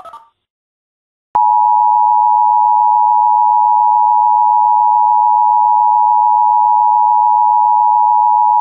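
Emergency Alert System attention signal: the steady two-tone alarm of 853 Hz and 960 Hz sounded together. It comes in abruptly about a second and a half in and holds loud and unchanging.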